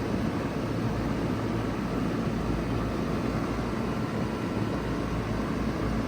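2-ton Bard wall-hung heat pump running steadily in cooling mode: a low, even hum under a constant rush of air from its fan.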